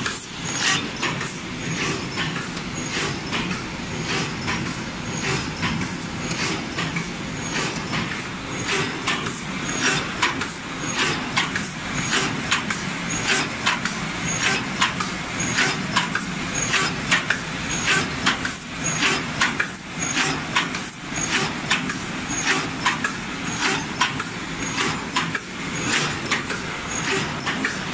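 Paper cup forming machine running: a continuous mechanical clatter of rapid, repeated sharp clacks from its rotary turret and cup-forming stations.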